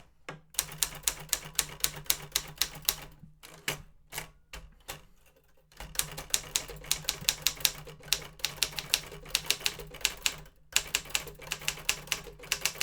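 Rapid keystrokes on a 1960 Consul Silent manual portable typewriter, several clacks a second, with a couple of short pauses, the longest a little after the middle.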